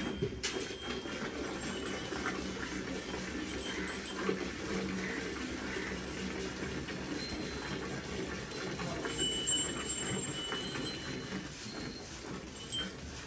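Hand milking a Holstein Friesian cow into a steel pail: a steady run of quick squirts of milk hitting the pail and the milk already in it.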